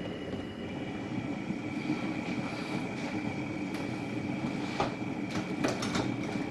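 Covered pan of fish in vinegar and water boiling on a stovetop burner, a steady low bubbling rumble, with a few sharp clicks near the end.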